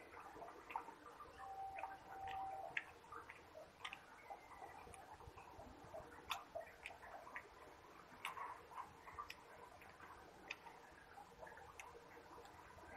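Fingers mixing rice and fried vegetables on a stainless steel plate, making faint, irregular clicks and soft taps against the metal.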